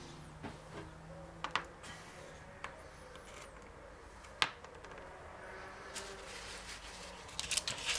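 Occasional light clicks and clinks of small metal gearbox parts and bolts being handled and set down on a wooden workbench, with one sharper click about four and a half seconds in and a quick run of clicks near the end.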